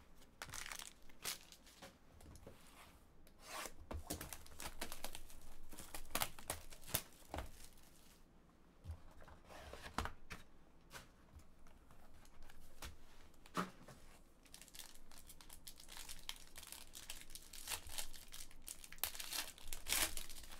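Plastic wrap and foil packaging on a pack of basketball trading cards being torn open and crumpled by hand. The crinkling and tearing come in several spells with short pauses between them.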